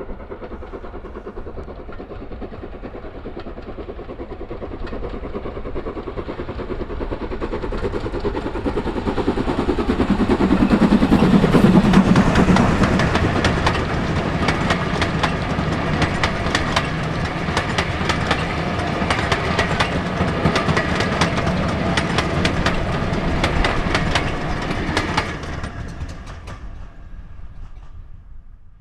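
Steam locomotive hauling a train of coaches, approaching and passing close by, loudest about a third of the way in as the engine goes past. The coaches' wheels then clickety-clack rapidly over the rail joints for about ten seconds before the sound fades away.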